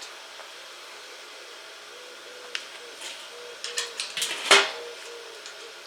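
Light metal clicks on a Weber Smokey Mountain smoker as its parts and new lid hinge are handled, with a louder metal clank about four and a half seconds in, over a steady hiss.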